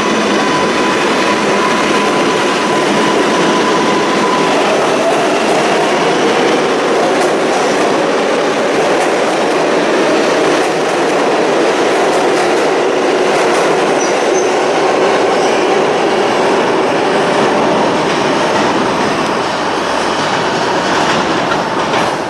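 New York City subway train running through the station: a steady, loud mix of wheel-and-rail noise with faint clicks and a whining motor tone that shifts in pitch as it goes.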